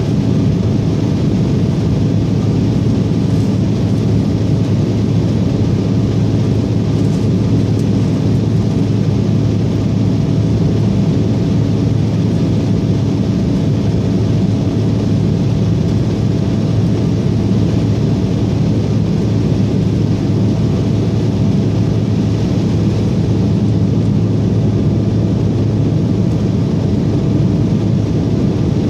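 Steady cabin noise of an Embraer E170 airliner in flight, heard from a window seat over the wing: its two CF34 turbofan engines and the rush of air around the fuselage make an even drone with a low hum and a faint held tone.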